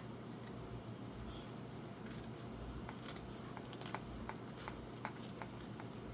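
Drop-leg holster straps and hardware being handled and adjusted: light rustling and, from about two seconds in, a scattered series of small, sharp clicks.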